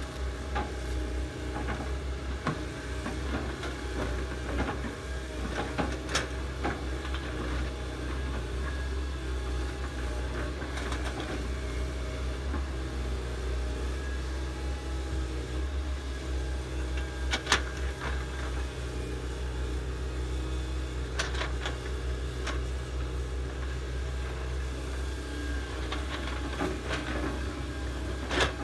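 Diesel engines of hydraulic excavators, a Komatsu among them, running steadily under load while digging, with a few sharp clanks, the loudest about two-thirds of the way in and another near the end.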